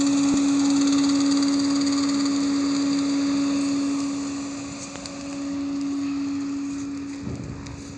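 Steady machine hum with a hiss above it from the equipment steaming the mushroom house to sterilise it. The hum dips briefly about halfway through.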